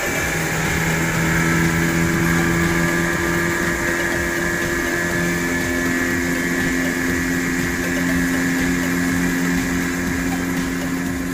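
Outboard motor of a small open passenger boat running steadily under way, a continuous drone whose note shifts slightly about halfway through.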